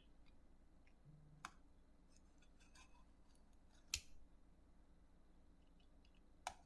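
A few faint, sharp clicks and taps from handling a small cardboard box and its tape, the loudest about four seconds in, over a near-silent room.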